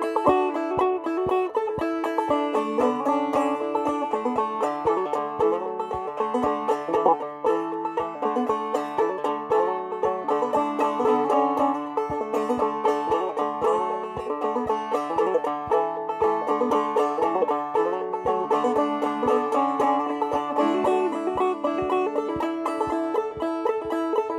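Five-string banjo played in clawhammer style, an old-time tune in a steady driving rhythm of bright plucked notes over a ringing drone.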